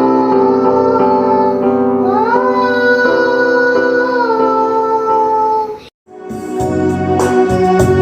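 Children singing with instrumental backing, holding long notes that slide up and down in pitch. It cuts off suddenly about six seconds in, and after a brief silence a different piece of music with a beat starts.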